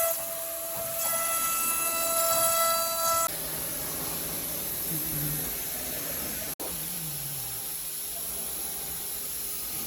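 A 5-axis CNC router's spindle gives a steady high-pitched whine with overtones, which stops suddenly about three seconds in. A steady hiss follows, cut off by a short dropout about two-thirds of the way through.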